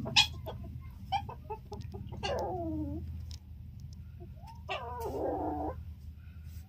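A few short animal calls: one cry falling sharply in pitch about two seconds in, then a harsher, rougher call near five seconds, with scattered light clicks and knocks between them over a steady low hum.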